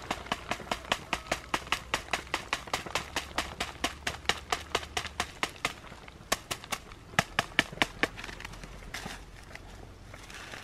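Machete blade knocking rapidly against a stick that holds up a black ant nest, shaking the nest out over a woven basket: sharp knocks about four or five a second, thinning out past the middle and stopping near the end.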